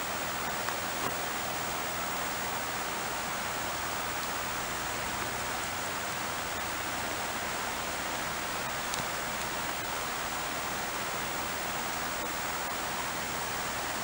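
Steady, even rushing noise of water.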